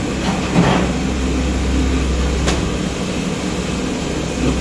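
Steady rumbling hiss of a gas burner under a large aluminium cooking pot of tomatoes in oil, with a faint click about two and a half seconds in.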